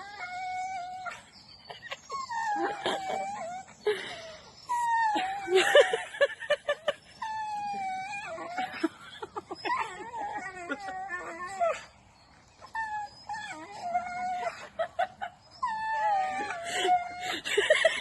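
A dog howling in a series of drawn-out, wavering calls, broken by short pauses.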